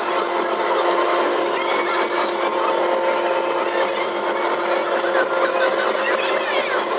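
Amusement park ride running: a steady mechanical hum and whine, with a few short high squeals now and then.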